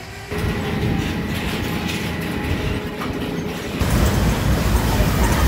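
Roller coaster train rumbling and clattering along its track. About three-quarters of the way through, the sound shifts to a louder, deeper rumble.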